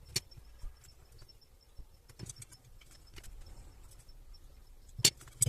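Light clicks and taps of small parts being handled on a workbench: a sharp click just after the start, a few faint taps, and two louder clicks close together near the end.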